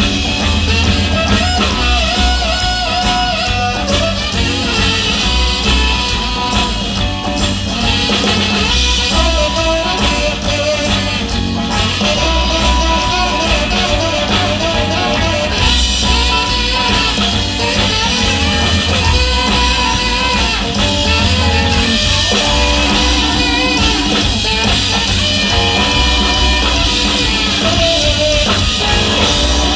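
A live rock band playing, with electric guitar and drum kit over a steady beat.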